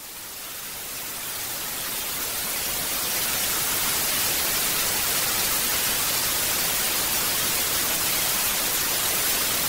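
White noise: an even, steady hiss, brightest in the high frequencies, fading in over the first few seconds.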